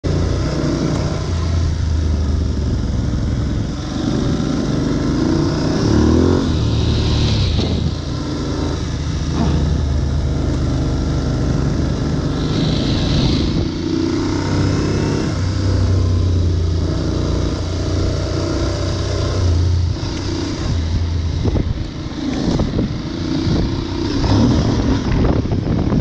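Aprilia Tuareg 660's parallel-twin engine heard from the rider's seat while riding a dirt track, its revs rising and easing off several times as the throttle opens and closes.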